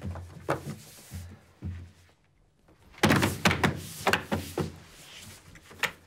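Hands drumming and slapping on a wooden table top: a few scattered thumps, then a fast loud run of about six knocks lasting a second and a half starting about three seconds in, and one sharp knock near the end.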